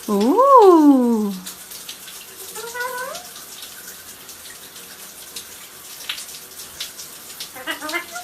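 Parrot calling: a loud call rising then falling in pitch, about a second long, a shorter call around three seconds in, and a quick warbling call near the end.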